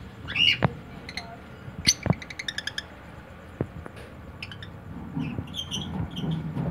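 Lovebirds giving short high chirps and a quick chattering run of about eight notes, with a few sharp clicks among them.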